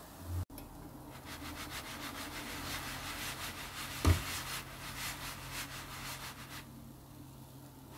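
Nonstick frying pan holding a crepe, shaken back and forth on a glass-top hob: a rapid rhythmic scraping of the pan base on the glass, with one knock of the pan about four seconds in.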